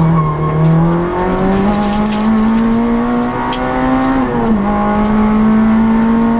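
Citroën Saxo Group N rally car's 1.6-litre four-cylinder engine heard from inside the cabin under hard acceleration. It climbs steadily in pitch, drops at an upshift about four seconds in, then pulls on. Scattered sharp ticks are heard throughout.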